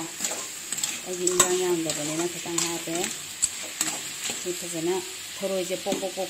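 Metal spatula stirring and scraping snails in their shells and chopped vegetables around an aluminium wok, with sizzling and frequent clicks of metal and shell. A low, wavering pitched sound comes and goes, in the middle and again near the end.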